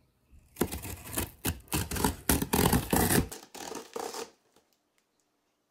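A thin knife blade slicing through packing tape and plastic wrap along the seam of a cardboard box: a quick run of scratchy scraping strokes for about four seconds, stopping shortly before the end.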